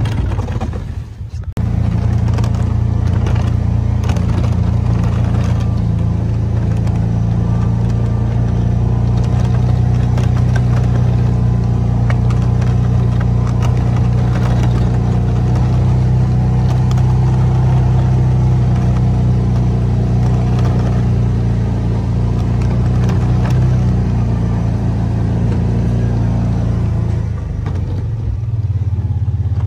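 Kawasaki Mule utility vehicle's engine running steadily while it plows snow, with a brief drop about a second in and the engine easing off near the end.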